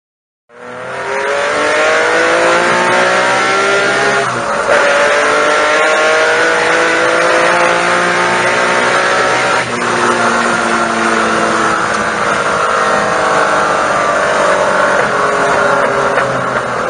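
Datsun Fairlady Z (S30) L-series straight-six accelerating hard. Its pitch climbs steadily, drops abruptly at upshifts about four and ten seconds in, then climbs again.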